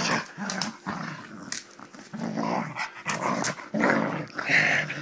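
Springer spaniel growling in play fighting: a run of short, rough growls about every half second, with sharp clicks mixed in, the loudest near the end. It is playful growling, not aggression.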